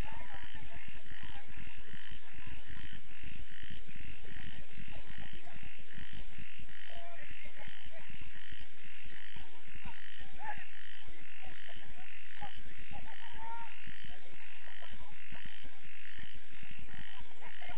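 A chorus of frogs calling steadily, in even pulses about four times a second, over a low irregular rumble. Faint distant shouts come through now and then.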